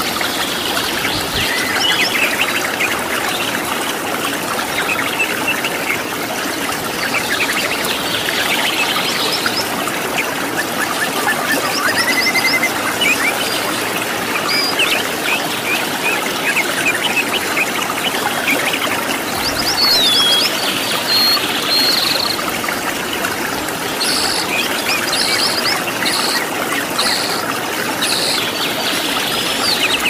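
Steady rush of a waterfall with wild birds chirping and whistling over it. Near the end, a bird gives a run of short, high, repeated notes.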